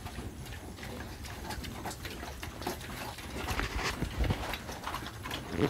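Piglets eating dry feed: irregular snuffling, chewing and small clicks of snouts in the feed.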